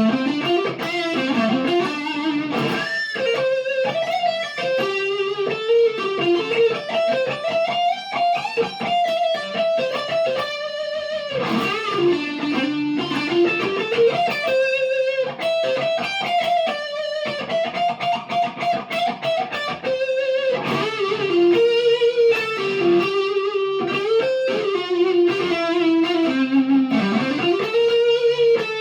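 PRS McCarty 594 Hollowbody II electric guitar played through a Marshall DSL40C amp, picking a continuous melodic line mixed with chords, its pitch climbing and falling throughout.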